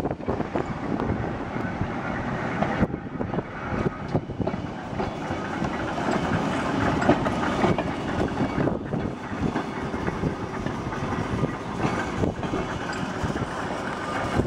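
Manx Electric Railway tramcars running along the track: steel wheels rumbling and clacking over the rails, with a steady rattle. It breaks off briefly about three and nine seconds in.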